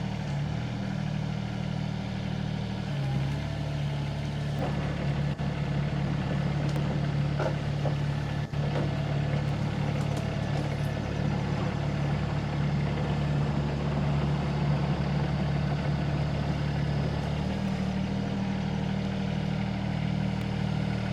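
SANY SY26U mini excavator's diesel engine running steadily, its tone shifting a couple of times, with a few short knocks.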